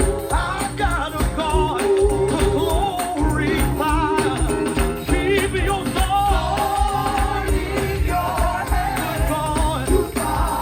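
Live gospel music: voices singing with wavering, held notes over a full band with a steady percussive beat.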